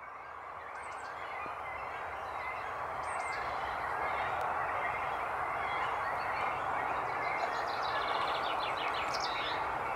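Outdoor waterside ambience: a steady wash of background noise that fades in at the start, with short high-pitched bird chirps about a second in and three seconds in, and a quick run of them near the end.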